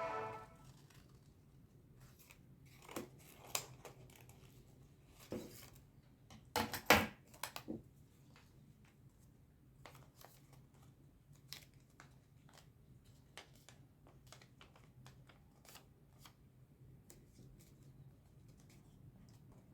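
Sheet of paper handled and folded by hand: a few short, faint crinkles and creasing clicks, the loudest cluster about seven seconds in, then only the odd faint tick.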